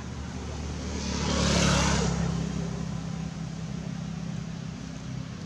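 Steady low motor-vehicle engine hum, with a swell of engine and road noise that rises to a peak about a second and a half in and fades by about three seconds, as a vehicle passes.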